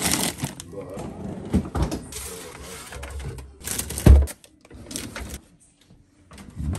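Groceries being put away in a refrigerator-freezer: plastic-wrapped packages rustling and knocking as they are pushed into a drawer, with a heavy thump about four seconds in as a drawer slides and bumps.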